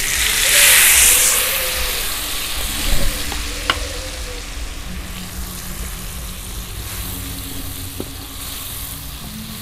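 Red chilli paste hitting hot oil in a metal wok and sizzling, loudest just after it goes in, then frying steadily as a metal spatula stirs it. A single sharp clink of the spatula on the wok comes about four seconds in.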